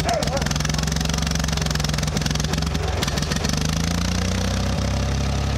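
1967 Ford 2000 tractor's three-cylinder engine running steadily at idle, its speed rising slightly about three and a half seconds in.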